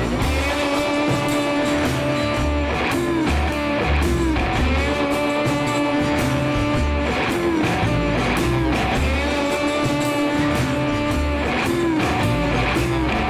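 Background music led by guitar, with held, bending notes over a bass line and a steady beat.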